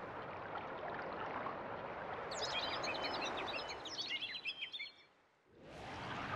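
Sea-water ambience with a flurry of small birds chirping for about two and a half seconds in the middle. The water noise fades out about five seconds in, and a similar water noise fades back up about half a second later.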